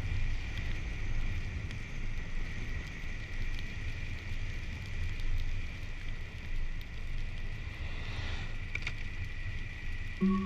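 A car being driven, with a steady low rumble of road and engine noise and a faint steady high whine over it; a short rustle comes about eight and a half seconds in.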